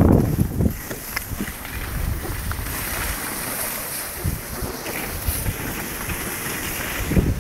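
Skis sliding over packed snow with wind buffeting the microphone, a steady rushing hiss that grows brighter for a couple of seconds midway, with low gusty rumbles near the start and end.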